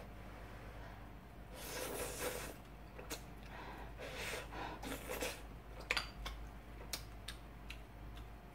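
Mouth sounds of eating udon noodles: two breathy slurps, the second longer, followed by a few light clicks.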